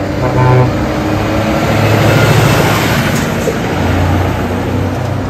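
Heavy-duty tow truck's diesel engine running as it drives by, a steady low engine drone over street traffic noise.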